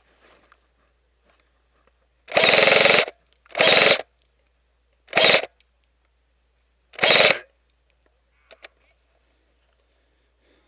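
Airsoft electric gun firing four short bursts on full auto, its gearbox motor buzzing through each one. The bursts come about two, three and a half, five and seven seconds in; the first is the longest.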